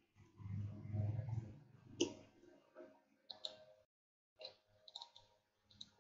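Scattered clicks of a computer keyboard and mouse as code is edited, a single click or a short run every half second or so, after a low rumble in the first second and a half.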